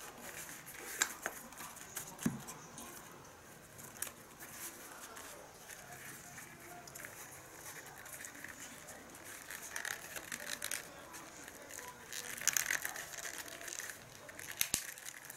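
Hands handling leather and small tools at a workbench: scattered clicks and taps with rustling between them, busiest about two-thirds of the way through.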